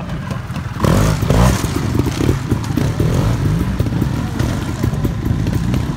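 Trials motorcycle engine running at low revs with short throttle blips, the first and loudest about a second in.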